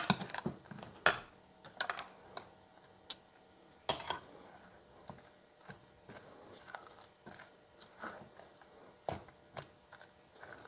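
A metal potato masher mashing cooked potatoes and carrots in a nonstick saucepan, with several sharp clicks as it knocks against the pan in the first few seconds. After that, softer, scattered scraping and stirring sounds as a spatula works the mash.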